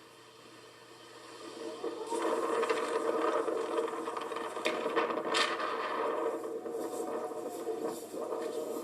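Outdoor tornado warning siren winding up over the first two seconds, then sounding a steady held tone, with a few clicks of handling noise.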